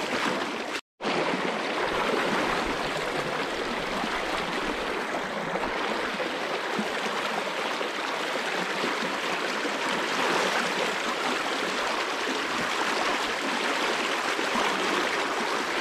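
Fast, shallow river riffle running high over stones and snags: a steady rush and burble of water, cut off briefly just under a second in.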